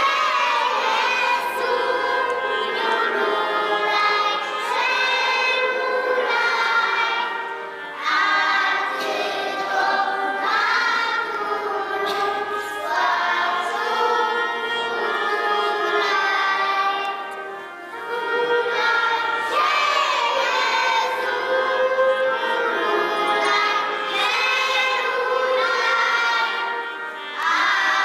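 A choir singing a song in sustained phrases, with short breaks between phrases about every ten seconds.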